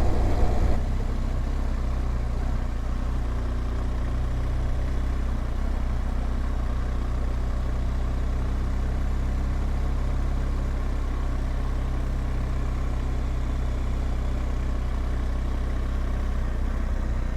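BMW R1200GS Adventure boxer-twin motorcycle engine running at a steady low speed. It is a little louder for the first second, then holds even.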